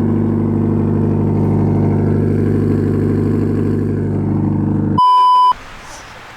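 Subaru BRZ flat-four engine idling loudly and steadily through a catless front pipe, a low drone. About five seconds in it cuts off abruptly and a loud electronic beep sounds for about half a second.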